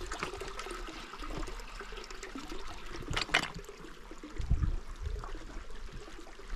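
Running water trickling and splashing, with two sharp knocks a little after three seconds in and a dull thud about a second later.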